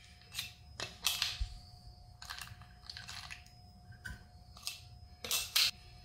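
Raw corn kernels being topped up into a glass pint canning jar through a plastic funnel: a string of short rustles, clicks and crunches from the spoon, the loose kernels and the plastic headspace tool against the glass. The loudest pair comes near the end.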